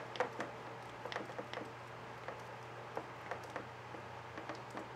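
Hand grease gun squeezed onto the steering swivel's grease fitting of a Honda 2.3 hp outboard: faint, irregular clicks and ticks from the gun and coupler, over a steady low hum.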